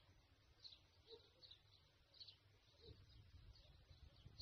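Near silence: faint, distant bird chirps every half second or so over a low rumble.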